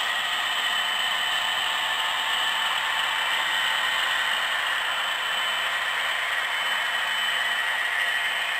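HO-scale model trains running past: a steady mechanical whir and clatter of locomotive motors, gearing and wheels rolling on the track, with a faint steady high whine.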